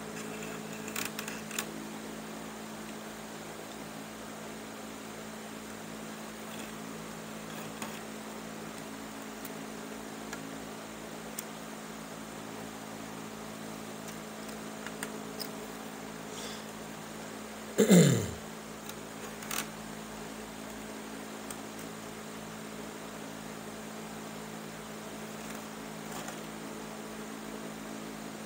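Steady electrical hum, with faint scattered clicks and rustles of chair cane strands being woven by hand. About two-thirds of the way through, one short loud sound drops steeply in pitch.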